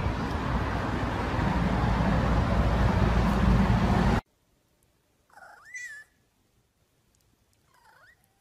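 Bass-heavy music that cuts off abruptly about four seconds in. Then a domestic tabby cat meows twice: a rising-and-falling meow about a second later, and a shorter, fainter one near the end.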